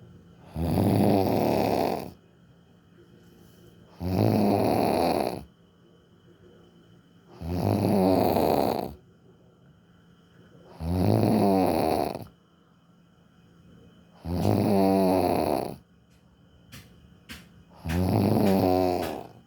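Loud snoring: six long snores, one about every three and a half seconds, with quiet between breaths.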